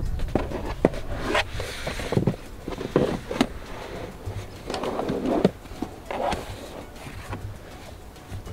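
Handling noises of a stiff rubber WeatherTech rear floor liner being laid over the center hump and pressed into place in the footwell: irregular scrapes, rubs and short taps and knocks.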